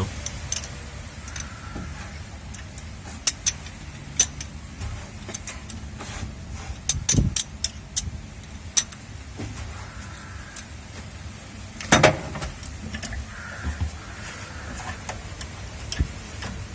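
Scattered metallic clicks and clinks of a spark plug spanner, extension rod and handle as a spark plug is unscrewed from a Tata Nano engine, with louder knocks about seven seconds in and again about twelve seconds in.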